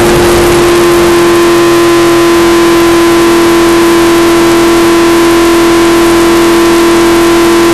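Stock car's V8 engine running at constant revs, heard from inside the cockpit as one loud, unchanging drone over dense wind and road noise, overloading the microphone into distortion.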